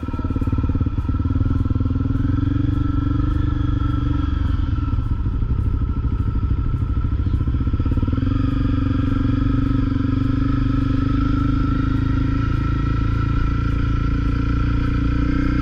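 Honda CRF250L single-cylinder motorcycle engine running under way, loud and steady, its pitch rising and settling twice as the throttle changes.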